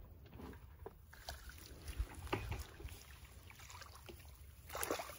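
Faint, scattered splashes and sloshing of shallow muddy water as hands grope through a drained ditch, a little louder near the end.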